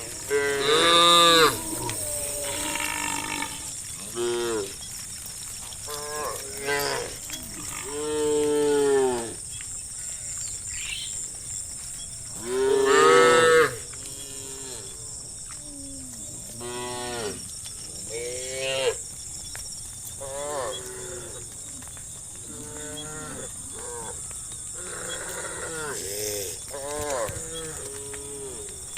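Farm cattle mooing again and again, many calls from several cows, the loudest about a second in and again around eight and thirteen seconds. A steady high-pitched whine runs underneath.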